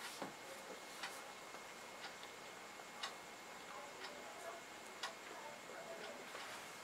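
Faint ticking at a steady rate of about one tick a second, like a clock, with soft eating sounds between the ticks: a bite into a fried pakora near the start, then quiet chewing and fingers handling the food.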